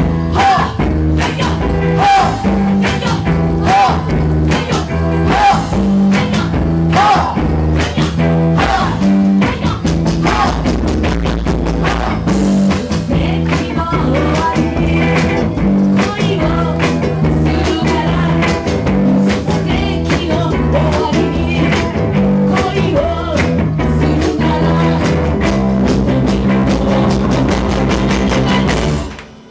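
Live band playing rock music: bass, electric guitar, ukulele and hand percussion, with a steady pulsing bass line. The music stops abruptly near the end.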